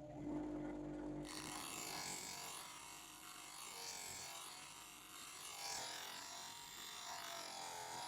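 A planer knife being sharpened against an abrasive in a homemade jig. After a short low hum in the first second, a hissing grinding noise starts abruptly and swells and eases every second or two.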